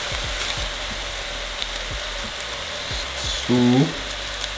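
Diced potatoes, carrots, celery and onion sizzling as they sauté in a pot: a steady frying hiss with faint crackles. A brief low pitched tone sounds about three and a half seconds in.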